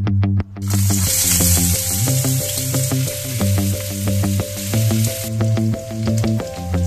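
Chopped onion frying in hot olive oil in a wok: a loud sizzle starts suddenly about half a second in and settles to a quieter sizzle after about five seconds. Background music with a steady beat plays throughout.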